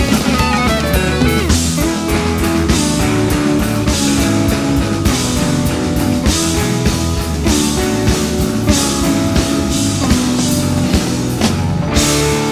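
Background rock music with guitar and drums, a steady beat.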